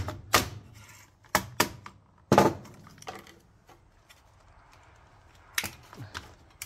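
Hammer blows on a leaf blower's black plastic intake cover, knocking a cardboard intake tube in for a tight fit: several sharp knocks in the first two and a half seconds, the loudest about two and a half seconds in, then two lighter knocks near the end.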